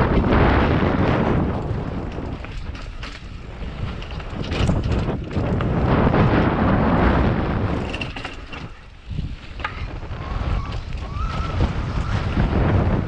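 Mountain bike descending a dirt downhill trail: wind rushing over the microphone and tyres rolling on dirt, with scattered knocks and rattles from the bike over bumps. The rush swells and fades as the speed changes.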